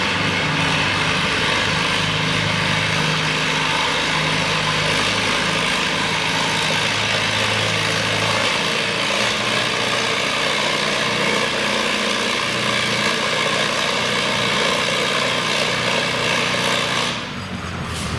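Antique Allis-Chalmers farm tractor engine working under load at steady throttle, dragging a weight-transfer pulling sled. The sound drops off briefly about seventeen seconds in as the pull ends.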